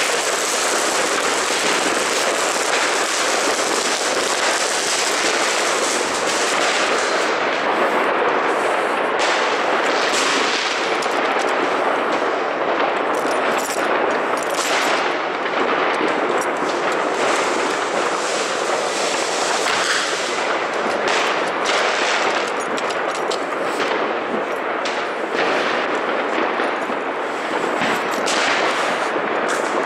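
Fireworks and firecrackers going off in a dense, continuous crackle of bangs, too fast and overlapping to count.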